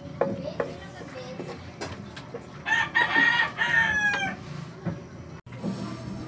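A rooster crowing once, about three seconds in, the call falling in pitch at its end. Before it, a few light knocks of a wooden spatula stirring in an aluminium wok.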